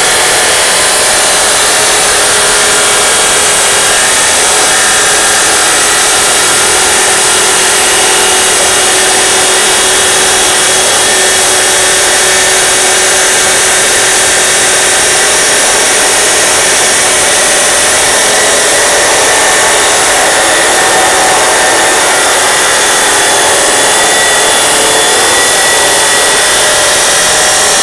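Osaka 2300 W abrasive cut-off saw with its disc grinding steadily through thick steel (4–5 mm), a loud, even whine under load with no let-up.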